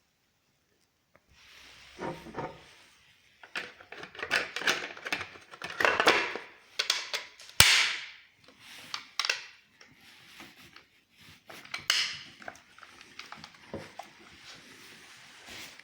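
Objects being handled: irregular clattering and rustling with scattered clicks and knocks, the loudest a single sharp knock about halfway through.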